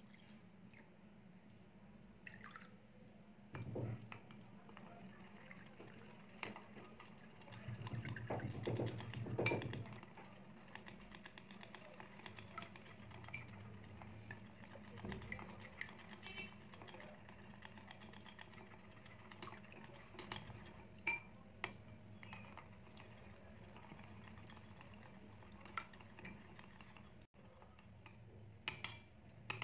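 Chopsticks beating raw eggs and a milky liquid in a ceramic bowl: soft, quick taps and clicks against the bowl and the slosh of the batter, with a few louder knocks about four seconds in and again around eight to ten seconds.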